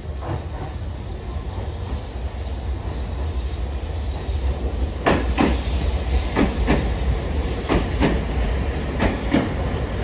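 Hiroden 3900-series 'Green Liner' articulated tram approaching and passing close by with a low rumble. From about halfway through, its wheels clack over the track in quick pairs.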